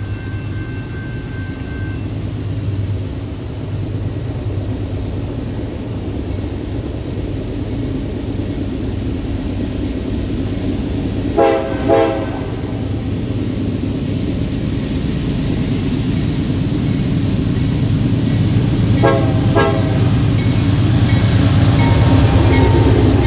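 Train running with a steady low rumble that grows louder toward the end. Its horn sounds two short blasts about eleven seconds in and two more about eight seconds later.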